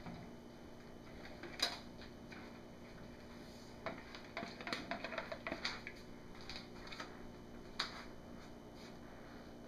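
Light clicks and taps of a metal spoon and plastic measuring jugs being handled while soap batter is scooped: one sharp click about a second and a half in, a quick cluster of small taps around four to six seconds in, and another click near the end.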